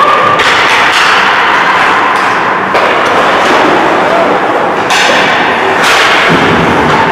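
Ice hockey play echoing in an indoor rink: a steady noisy din with several sharp knocks of sticks and puck against the boards.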